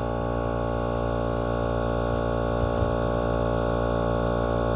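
Portable 12-volt air compressor (tire inflator), clamped to a battery, running with a steady drone as it pumps air into a car tire.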